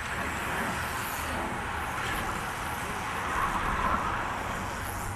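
A pack of road racing bicycles passing close by at speed, a rushing noise of tyres and wind that swells as the bunch goes past.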